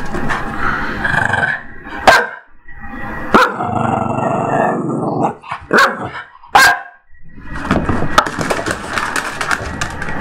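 Small dog growling and barking in play, with a few sharp barks between longer stretches of growling.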